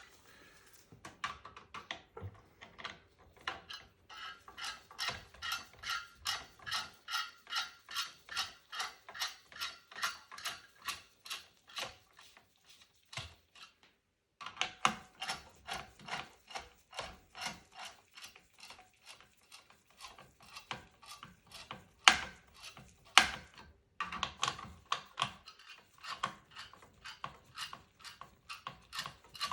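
A ratcheting screwdriver clicking steadily, about three clicks a second, as it backs out the screws holding a desktop CPU heatsink. The clicking pauses briefly about halfway and then resumes, and two louder knocks come about three-quarters of the way through.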